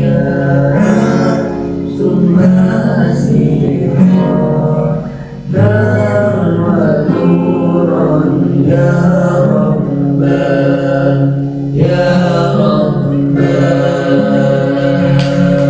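Sholawat, an Islamic devotional song, sung in long held, ornamented phrases over musical accompaniment.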